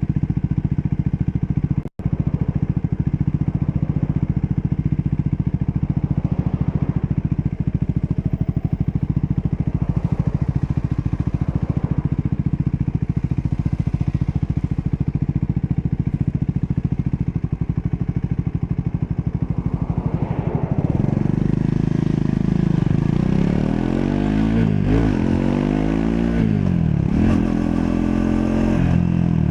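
Triumph Scrambler 400 X's single-cylinder engine running at a steady speed, then revved up and down several times over the last third. The sound cuts out briefly about two seconds in.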